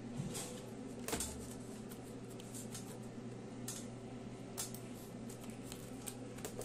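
Faint steady hum with a few scattered small clicks, the clearest about a second in.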